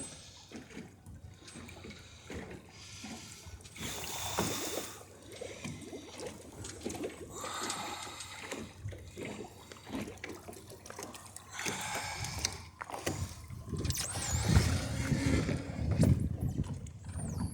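Water splashing and trickling around a small boat, with scattered knocks and a few heavier low thumps late on.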